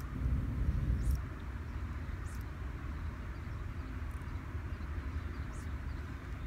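Steady low outdoor rumble that swells briefly in the first second, with faint short high chirps every one to two seconds.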